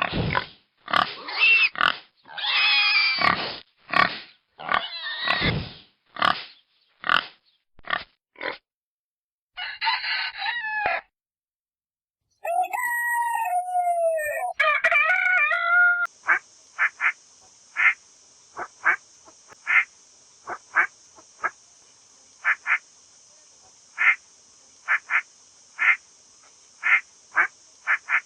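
A run of farm animal recordings, one after another. Pig grunts and squeals come first, then a drawn-out pitched call that glides in pitch, then a long series of short, sharp calls over a steady hiss, about one or two a second.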